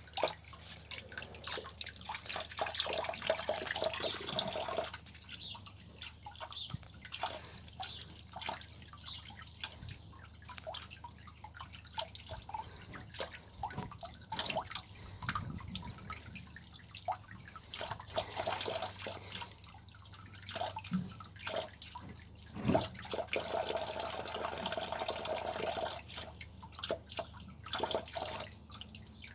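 Tap water trickling and dripping into a sink, louder at times, with irregular splashes and ticks as a cat drinks from the stream.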